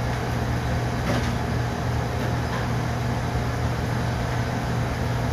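Commercial kitchen exhaust hood fan running: a steady low hum with a constant rush of air. There is a faint clink or scrape about a second in.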